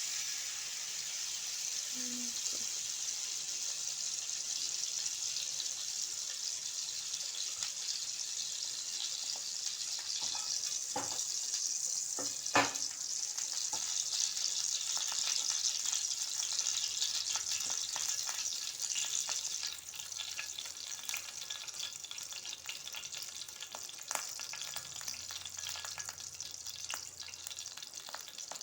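Ghee sizzling steadily in a hot non-stick pan on the stove, easing off somewhat about two-thirds of the way through. A couple of sharp knocks come near the middle.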